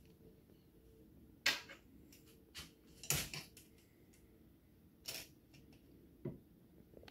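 Irregular sharp clicks and taps of a tape measure and hands against metal drawer runners and their plastic Tip-On hardware. The loudest comes about three seconds in.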